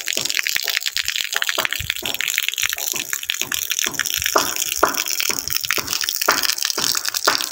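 Water gushing and splashing in a steady hiss, full of irregular splashes: a full ferrocement storage tank overflowing.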